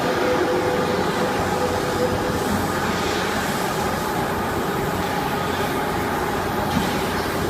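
Steady din of running industrial machinery, with a constant hum and no distinct cuts or strikes.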